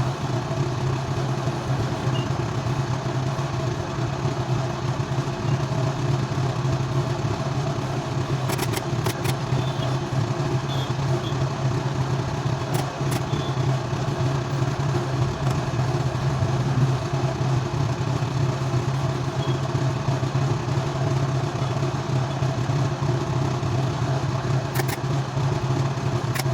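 Steady low drone of a running motor or engine, unchanging, with a few faint clicks.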